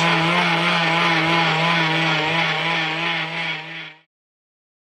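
Pedal-powered bike blender spinning hard: the bicycle wheel turns a roller that drives the blender blade, giving a steady whine whose pitch wavers slightly and rhythmically. It cuts off abruptly about four seconds in.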